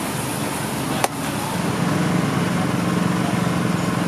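Busy outdoor market noise with one sharp click about a second in, then a steady low motor hum starting shortly after and holding on.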